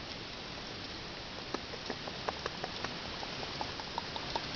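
Steady rain hiss, with light irregular ticks and taps, a few a second, starting about a second and a half in.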